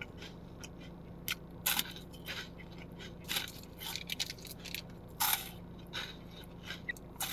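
Crispy seaweed-wrapped rice cake rolls crunching as they are bitten and chewed. The crunches are short, sharp and crackly and come at irregular intervals.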